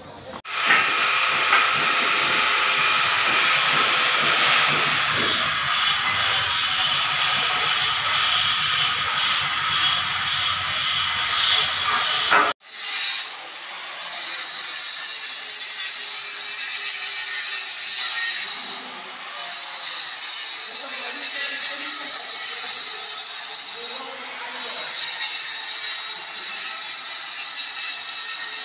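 Electric grinder cutting a groove into a plastered masonry wall for conduit, a steady harsh grinding. It is loudest for the first twelve seconds, then drops abruptly to a quieter grind that eases off briefly about every five seconds.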